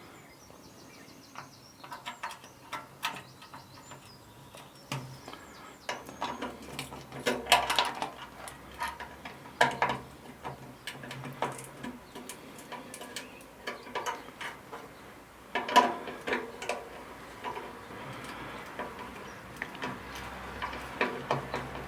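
Hand work on metal parts with a spanner: scattered clicks, clinks and knocks as a fuse box bracket is fitted and bolted under a tractor dashboard, coming in clusters, the loudest about 16 seconds in.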